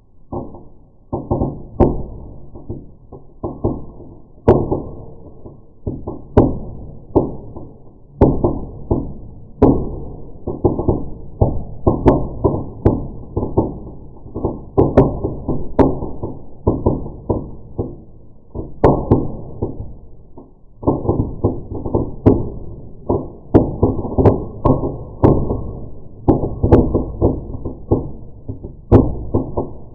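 Slowed-down crackling of a 'Baumkuchenbombe' fireplace firework: a dense, irregular run of deep pops and knocks, several a second, with a short lull about two-thirds of the way through.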